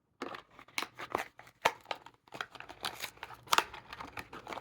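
A Hot Wheels blister pack being opened: irregular crackling and snapping of the plastic blister and card packaging, with two louder snaps.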